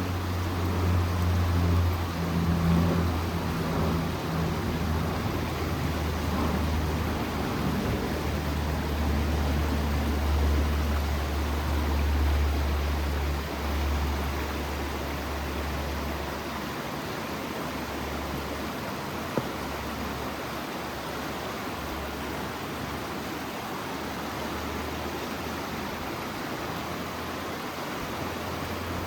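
Steady rushing of a flowing creek. Under it there is a low rumble for the first half, which fades out about sixteen seconds in.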